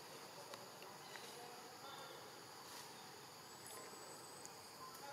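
Faint forest ambience: a steady, high-pitched drone of insects, with a few faint ticks.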